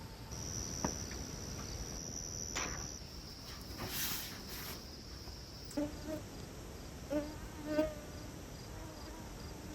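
Crickets or other insects singing: a steady high-pitched trill for about the first half, then a rhythmic pulsing chirp. A few short, low pitched sounds come over it in the second half.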